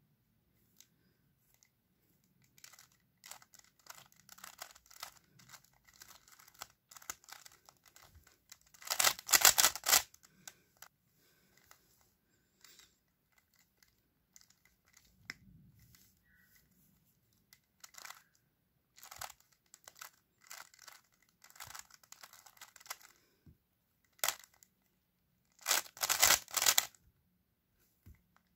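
Stickerless 3x3 speed cube being turned with finger tricks: quick runs of clicking, clattering layer turns, loudest in two fast flurries, one about a third of the way in and one near the end.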